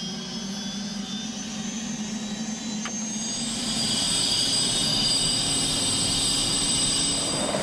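Turbine engines of a twin-engine AS355 Écureuil helicopter whining during start-up, the high whine growing louder about three to four seconds in, over a low hum. A single short click sounds near the middle.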